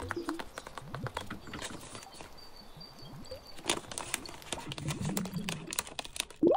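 Paper sticker sheet crinkling and rustling in the hands while a large sticker is peeled off its backing, with many small sharp ticks from the paper and the paper claw nails on the fingers. A louder sharp crackle near the end.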